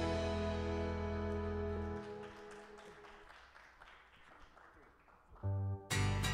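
Worship band music: a held chord that dies away about two seconds in, leaving a few faint seconds. Near the end a low bass note sounds and the full band with strummed guitar comes back in.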